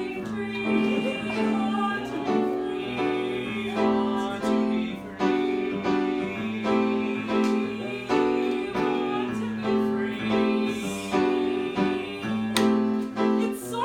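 Piano music playing repeated chords in a steady rhythm over a sustained low note.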